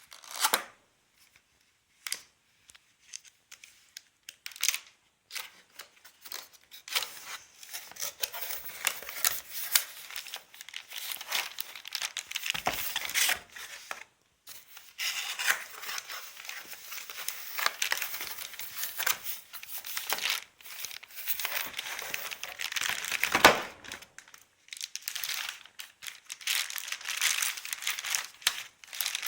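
A toner cartridge's packaging being opened by hand. Scattered handling clicks give way, about seven seconds in, to continuous tearing and crinkling, with one sharper rip later on.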